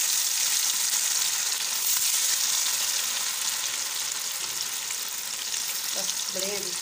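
Gram-flour-coated fish pieces frying in hot oil over a high flame: a steady sizzling hiss that eases slightly toward the end.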